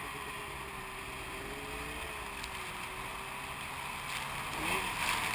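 2011 Arctic Cat M8 snowmobile's 800 cc two-stroke twin engine running at steady throttle through deep snow. Near the end the revs climb and it gets louder.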